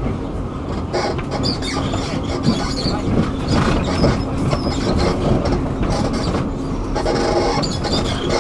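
A Rome line 3 tram running along its track, heard on board: a steady rumble of wheels on rails with a few short clicks.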